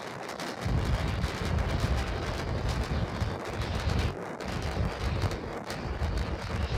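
Starship's three Raptor rocket engines firing during ascent, heard from far away as a crackling rumble with a deep low end.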